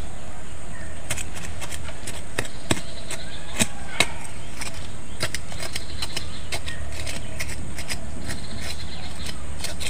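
Digging by hand in dry forest soil to free a wild mushroom: a run of irregular scratches and small clicks, with a few sharper knocks a few seconds in.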